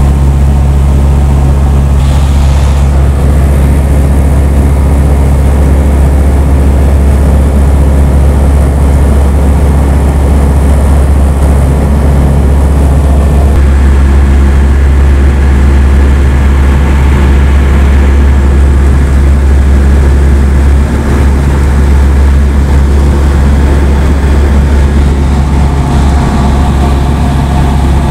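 Light aircraft's piston engine and propeller running steadily in cruise, heard loud inside the cockpit as a constant low drone.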